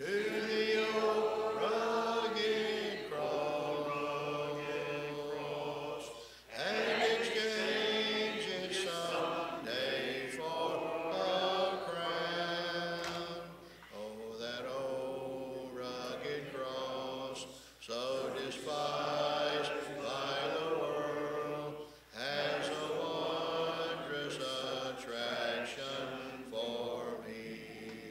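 Congregation singing a hymn a cappella, in long held phrases with brief breaks between the lines.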